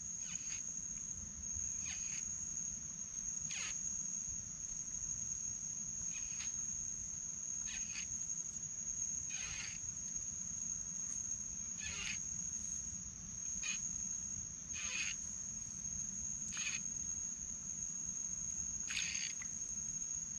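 Insects droning steadily on one high-pitched note, with short higher calls or chirps every couple of seconds.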